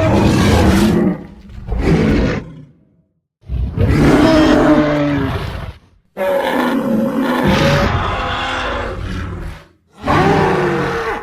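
Made-up Arsinoitherium creature calls, blended from animal and monster sound effects such as rhinoceros, moose and bull. Five deep, pitched roaring calls follow one another with short gaps; the first is already under way at the start, and the longest lasts about three seconds.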